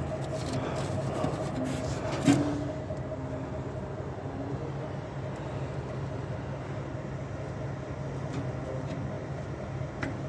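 A steady running hum from an engine or machine, with one sharp knock about two seconds in.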